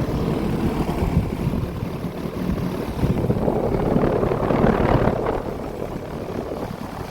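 Outdoor GrandAire air-conditioner condenser running: a steady fan whoosh over a low hum, swelling louder for a couple of seconds around the middle.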